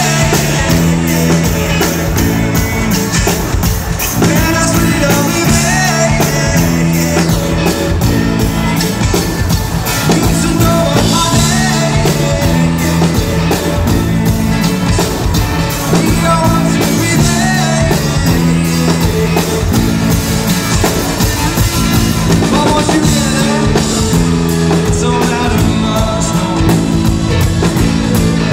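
Live rock band playing: electric guitars, keyboard and drum kit over a steady beat and repeating bass line, with some singing.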